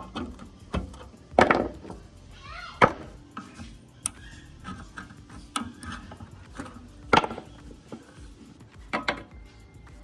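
Hand tools, pliers and a flat steel bar, knocking, clinking and scraping against a rusty sheet-metal chassis and a small component while its wires are cut and pried loose, with several sharp knocks a second or two apart.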